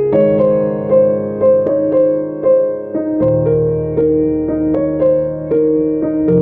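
Background piano music: a slow, sad melody of struck notes over held bass notes.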